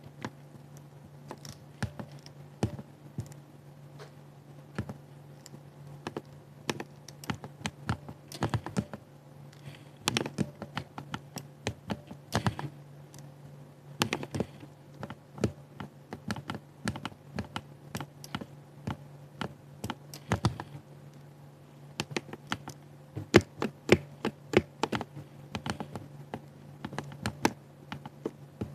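Typing on a 60% keyboard: irregular keystroke clicks in runs and short pauses, with the heaviest strikes about three-quarters of the way through, over a steady low hum.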